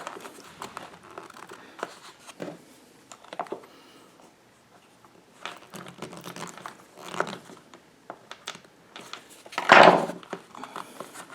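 Hands working a plastic strain-relief cable grommet out of a mini lathe's speed controller box: irregular plastic clicks, scrapes and rustling, with one loud knock near the end.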